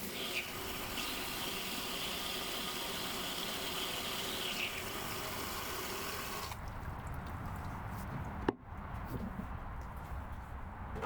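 Water pouring and splashing onto garden soil during watering. The steady hiss breaks off abruptly about two-thirds of the way through, and a single sharp click follows.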